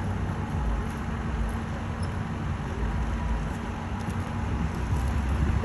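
Steady low rumble of vehicle engines running, with a constant low hum, from a line of trucks towing boats.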